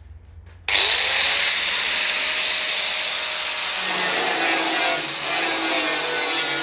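Electric power tool starting up about a second in, its motor rising in pitch and then running steadily, with a loud grinding noise as it works on the car's sheet-metal body.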